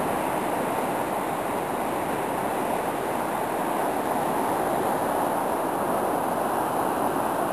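Muddy river in flood rushing past, a loud, steady rush of turbulent water.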